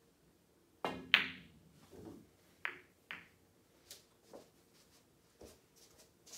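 Pool shot: the cue tip strikes the cue ball, then a loud, ringing click as the cue ball hits an object ball. Several fainter clacks follow over the next few seconds as balls collide with each other and knock off the cushions.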